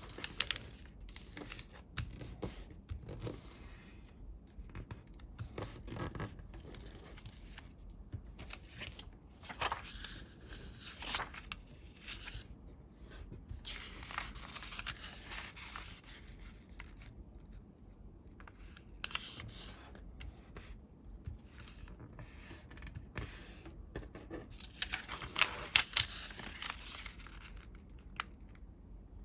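A sheet of colored paper being handled, folded and creased by hand, rustling and crinkling in irregular bursts with a few sharp creasing clicks, loudest near the end.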